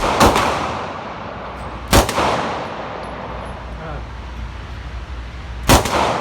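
Three shots from a Hi-Point C9 9mm pistol, the first just after the start, the next about two seconds later and the last near the end, each followed by a long echoing decay.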